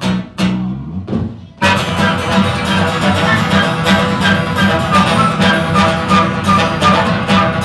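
Live acoustic band playing an instrumental passage: a few acoustic guitar strums, then about one and a half seconds in the full band comes in, with strummed acoustic guitar under flute and clarinet.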